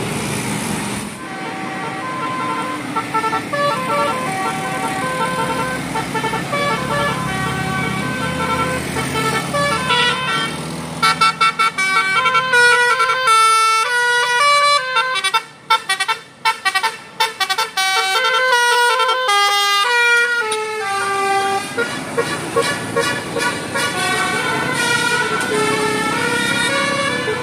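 Bus Basuri 'telolet' musical horn playing a tune of stepped multi-note horn tones over bus engine noise. Partway through it gets loud, with a run of short, choppy blasts, then settles back to a quieter tune near the end.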